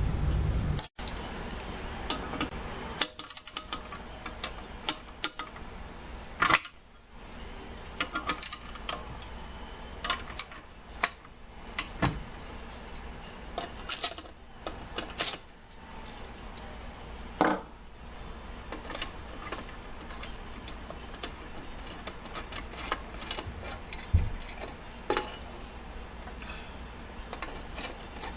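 Small metal parts and tools clinking and clattering as they are handled and set down, with scattered sharp clicks and knocks.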